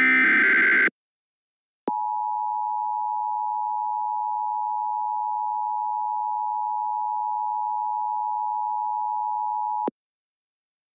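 Emergency Alert System tones heralding a tornado warning. First comes about a second of the SAME header's screeching digital data tones, the last of three repeats. After a second's gap the EAS two-tone attention signal, 853 and 960 Hz sounded together, holds a steady buzz for about eight seconds and then cuts off.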